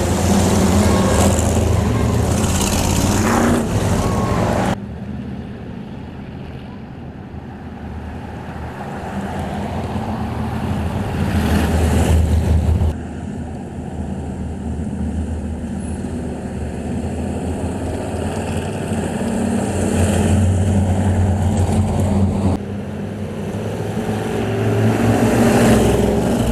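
Racing pickup trucks' engines running at speed around a short oval track, swelling and fading as the trucks pass. The sound changes abruptly three times, about five, thirteen and twenty-two seconds in.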